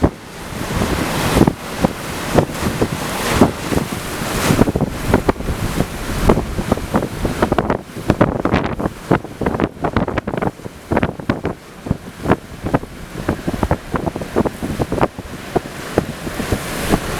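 Hurricane winds gusting hard and buffeting the microphone, rising and falling, with many sharp irregular knocks and cracks throughout.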